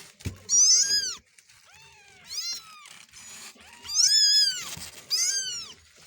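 Kittens mewing repeatedly: a run of about five high-pitched calls, each rising then falling in pitch, the loudest about four and five seconds in.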